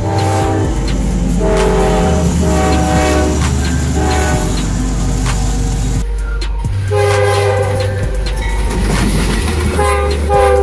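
Diesel locomotive air horn sounding a series of blasts, some short and some longer, over a steady low rumble.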